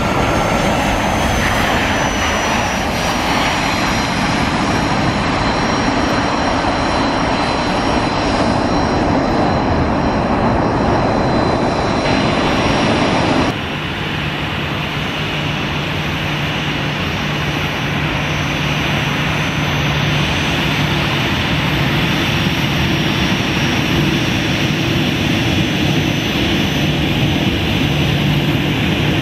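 Boeing 737 BBJ's CFM56 turbofans running loud as the jet touches down and rolls out, with a high whine falling in pitch in the first few seconds. After an abrupt cut about 13 seconds in, the same engines run steadily at taxi power with a low hum and a faint high whine.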